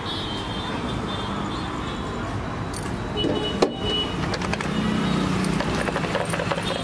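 Street traffic noise: motor vehicles running steadily, with a sharp click about three and a half seconds in.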